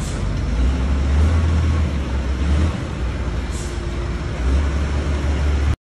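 Diesel engine of a Mitsubishi Fuso dump truck running as the truck drives slowly across the yard: a deep rumble that swells and eases. A brief hiss comes about three and a half seconds in, and the sound cuts off suddenly near the end.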